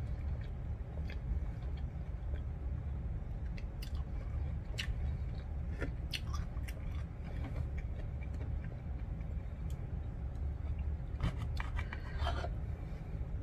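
Chewing and mouth sounds, with a fork and knife clicking and scraping on a plate, over a steady low hum. Near the end comes a denser run of scraping and clicks as the knife cuts through the food on the plate.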